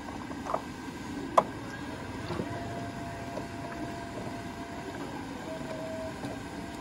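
Puthu bambu steamer running with a steady rush of steam. Two sharp knocks come about half a second and a second and a half in as bamboo steaming tubes are handled, then a faint steady whistle sounds from the steamer for a few seconds.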